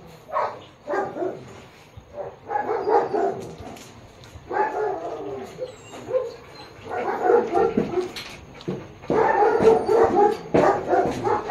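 An Akita crying out in repeated short bursts of whines and yips during a mating tie, with the longest and loudest burst near the end.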